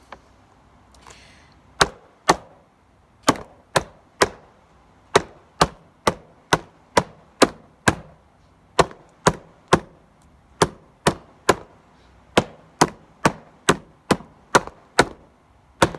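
Hands drumming on a wooden tabletop to a steady pulse of about two strikes a second. It is a rhythm pattern with a rest in place of a beat every few beats, the gap left on the third beat.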